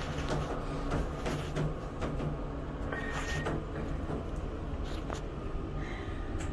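An elevator running in its shaft as the car comes to the floor: a steady low hum and rumble, with scattered light clicks and a brief high tone about three seconds in.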